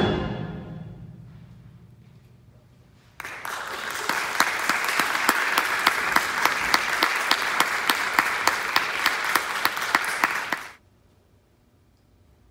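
A concert band's final chord dies away in the hall's reverberation; about three seconds in, audience applause starts, goes on for about seven seconds and then cuts off suddenly.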